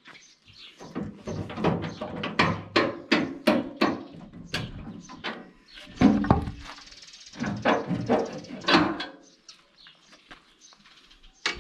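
Oak and beech firewood logs tumbling off a tipping trailer bed in a rapid, irregular run of wooden knocks and thuds. The clatter dies away about nine seconds in.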